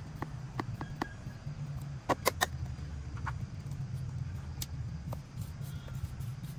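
Knife slicing aloe vera leaf into small pieces over a plastic pot of soil: a series of sharp clicks, loudest in a quick cluster of three about two seconds in, over a steady low hum.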